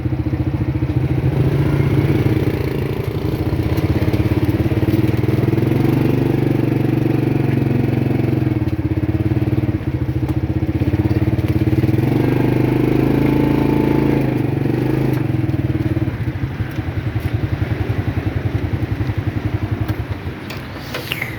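Motorcycle engine running under way, its note rising and falling as the speed changes, then easing off and getting quieter in the last few seconds.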